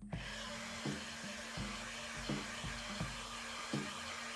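Handheld electric heat gun blowing a steady stream of hot air across a smartphone's screen edge, heating the display adhesive to loosen it for removal. It switches on right at the start and cuts off just before the end.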